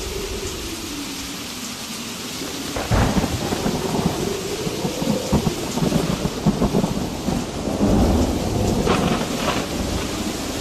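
Thunderstorm sound effect: steady rain with a roll of thunder that breaks about three seconds in and rumbles on, crackling, almost to the end.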